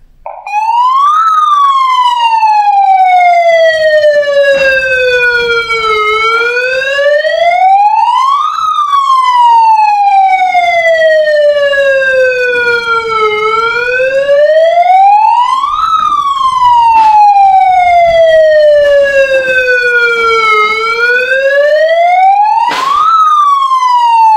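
MX AM21SD+ handheld megaphone sounding its built-in siren: a loud wail that climbs quickly to a high peak and sinks slowly to a low note, repeating about every seven seconds. It starts about half a second in.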